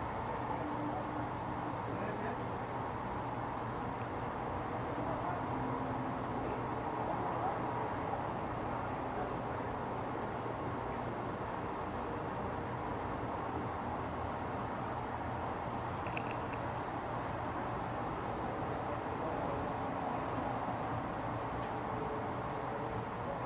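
A steady high-pitched trill with an even pulse, over a low hum and a faint murmur of background noise.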